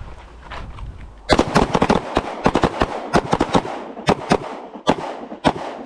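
Handguns firing from a line of several shooters: a rapid, overlapping string of shots that starts about a second in and runs for about four seconds.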